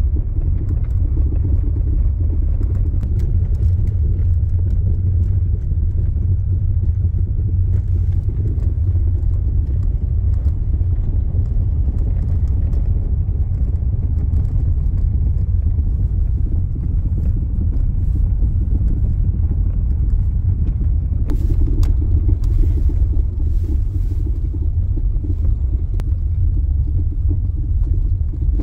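Honda Element driving slowly on a gravel road, heard from inside the cabin: a steady low rumble of engine and tyres, with a few faint clicks about three-quarters of the way through.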